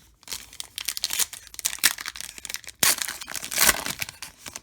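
Plastic trading-card pack wrapper crinkling and tearing as a pack is opened, in dense crackly bursts, loudest about two seconds in and again from about three to four seconds in.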